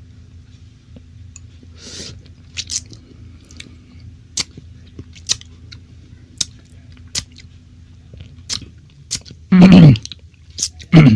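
Close-miked mouth and food-handling sounds: scattered sharp clicks and smacks about once a second over a low steady hum. Near the end come two loud, short voiced sounds with a falling pitch.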